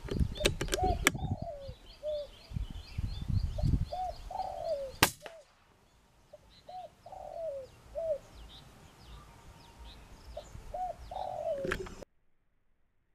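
Pigeons calling with short, repeated rising-and-falling coos, while small birds chirp in quick high series behind them. A single sharp crack stands out about five seconds in, and the sound cuts off abruptly near the end.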